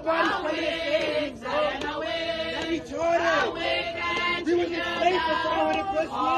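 A group of women and men singing a hymn together.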